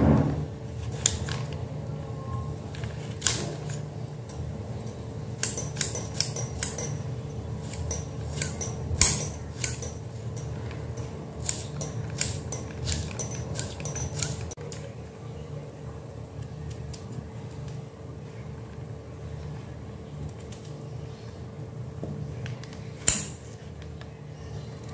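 Small kitchen knife cutting a tomato held in the hand and a potato on the counter: irregular light clicks and taps of the blade, thickest in the middle, over a steady low hum.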